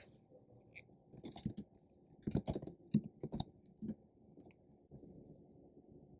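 Computer keyboard keys clicking softly in a few short runs as a terminal command is typed and entered.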